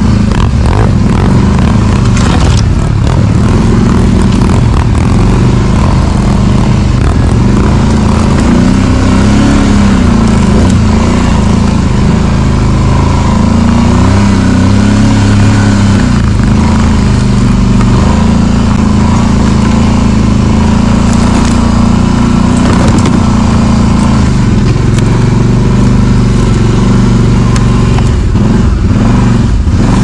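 Kawasaki Brute Force 750 ATV's V-twin engine running steadily under way, its pitch shifting slightly with the throttle, with a few brief knocks.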